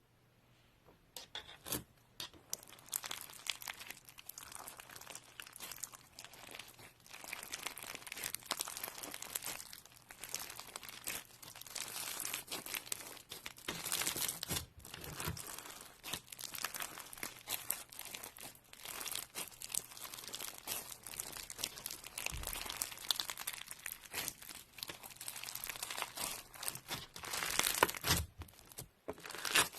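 Slime being squished, poked and stretched by hand, giving a continuous irregular run of fine crackling and sticky popping clicks.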